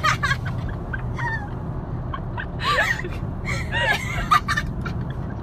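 Women laughing hard in short cackling bursts, loudest in the middle, over the steady low rumble of a car on the road heard from inside the cabin.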